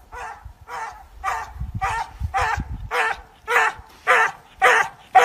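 A small dog barking in a steady run of short yaps, about two a second, growing louder toward the end, as it chases a hare down a snowy road.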